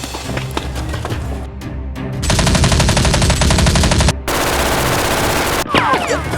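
Two long bursts of rapid automatic gunfire over background music, the first starting about two seconds in and the second following right after it and stopping shortly before the end.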